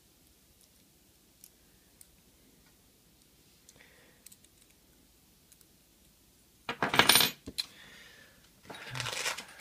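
Small metal parts clattering on a hard surface in two short bouts, about seven seconds in and again near the end. Before them come a few faint ticks of metal being handled.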